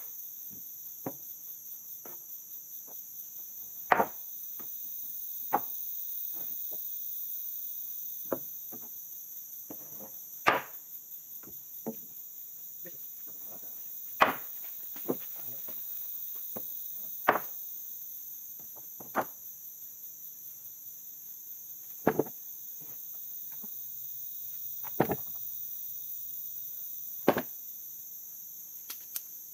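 Heavy ulin ironwood planks knocking against each other as they are lifted and stacked: a sharp wooden knock every two to three seconds. A steady high drone of insects runs underneath.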